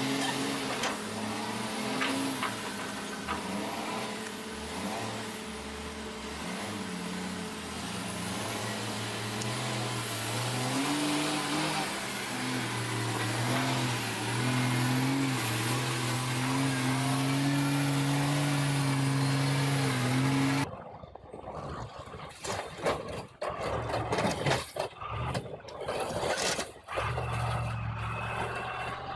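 Heavy machine's engine running under load, its pitch rising and falling as it revs. About two-thirds of the way through, the sound cuts abruptly to a choppier engine with irregular knocks and clanks.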